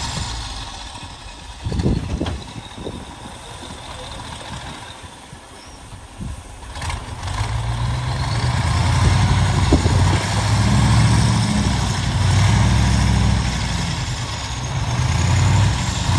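Heavy diesel engine of an earthmoving machine running with a low rumble. It is quieter for the first few seconds, then louder and pulsing from about halfway.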